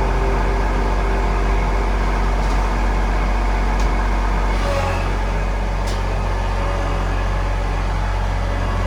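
Kubota L2502 tractor's diesel engine running steadily, its low drone shifting about halfway through.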